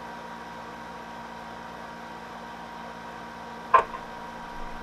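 Steady electrical hum and hiss, broken once about three and a half seconds in by a single sharp gunshot from a long gun aimed at a target in the air.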